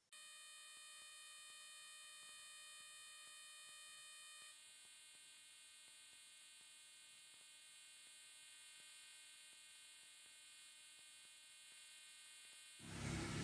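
A faint, steady electronic buzzing tone starts suddenly and shifts to a different pitch pattern about four and a half seconds in. Shortly before the end a much louder rushing noise cuts in.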